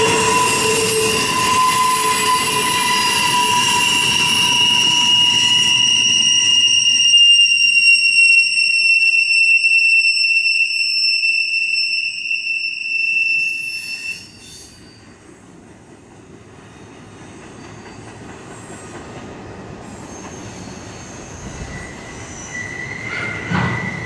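Wheels of a passing CSX double-stack intermodal train squealing on a curve: a loud, high squeal of several steady tones that drift slowly in pitch and cut out about 14 seconds in. A quieter rumble of the rolling well cars follows, with a brief squeal and a couple of knocks returning as the last car passes near the end.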